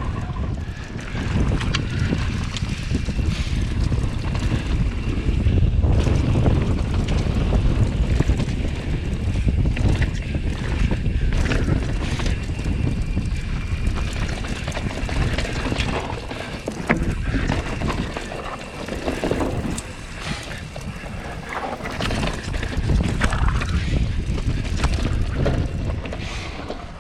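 Transition Scout mountain bike descending a dirt trail: wind buffeting the microphone over the rumble of the tyres, with frequent clicks and knocks from the bike rattling over rough ground.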